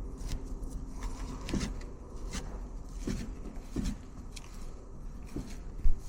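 Hand tools clicking and scraping on a car battery terminal, in scattered short strokes, with one loud low thump near the end.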